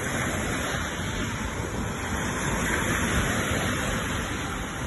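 Steady rushing noise of small waves washing onto a sandy shore, mixed with wind buffeting the microphone.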